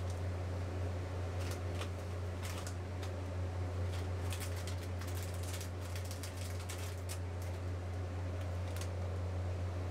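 Steady low hum of a rolled ice cream machine's refrigerated cold plate running, with scattered small clicks and crackles between about one and nine seconds in.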